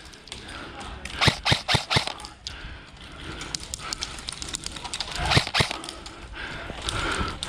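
Airsoft guns firing single shots: three sharp cracks in quick succession about a second in, then two more a little after halfway.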